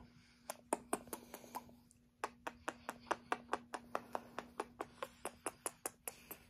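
Rapid kissing smacks of lips on a kitten's fur, short clicks about five a second with a brief pause about two seconds in.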